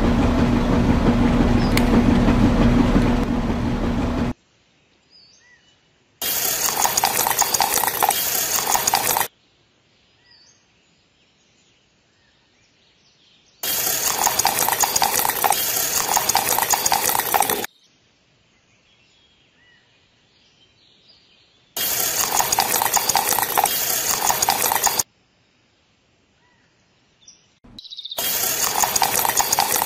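A toy cement mixer's small battery motor runs for about four seconds with a steady hum. Then come four spells of sloshing and scraping as wet cement is poured from a small bucket onto a wire-mesh slab, with quiet gaps between them.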